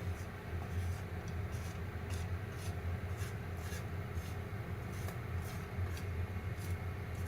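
Popcorn popping: scattered sharp pops, two or three a second, over a steady low hum.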